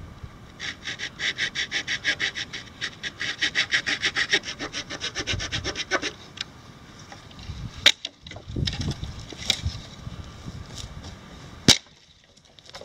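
Small folding wood saw of a Swiss Army Knife Camper cutting through a dry deadfall branch with rapid, even back-and-forth strokes that stop about six seconds in. Then handling of the wood, with two sharp knocks a few seconds apart.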